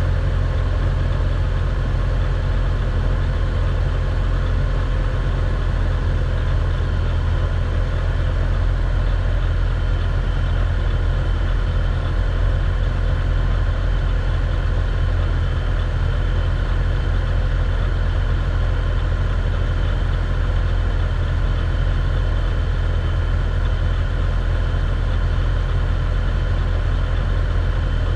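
Mitsubishi Varica 1.1's engine idling steadily, running at an even speed after its cylinder head was resurfaced and its head gasket replaced.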